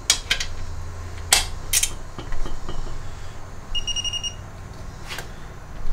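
Hand tools clinking and clicking on the transmission case bolts: a handful of sharp, separate clicks. About two thirds of the way through comes one short, high electronic beep lasting about half a second.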